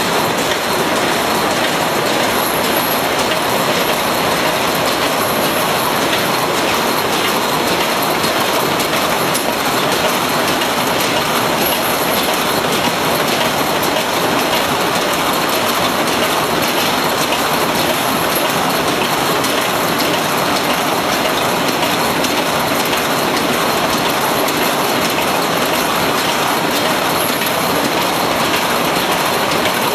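Corrugated-box flexo printer-slotter folder-gluer running in production: a steady, dense mechanical clatter of the machine feeding and folding printed board sheets, with no pauses.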